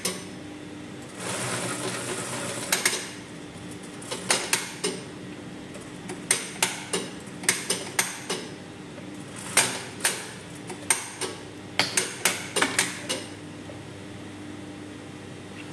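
Brother industrial lockstitch sewing machine running a short burst of stitching about a second in, then a series of sharp mechanical clicks and knocks as the work is handled at the machine, over a steady low hum.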